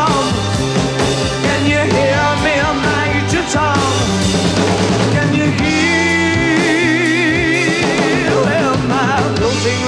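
Rock band playing live: a male voice singing over acoustic guitar, electric guitar and drum kit, with a long wavering note held about six seconds in.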